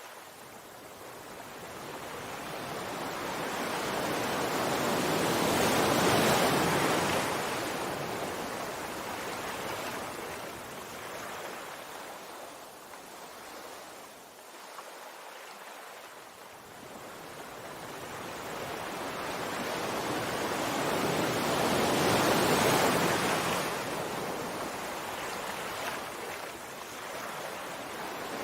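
Sea waves breaking and washing on a shore: two big swells of surf noise, the first peaking about six seconds in and the second about twenty-two seconds in, each falling away slowly, with a smaller wash near the end.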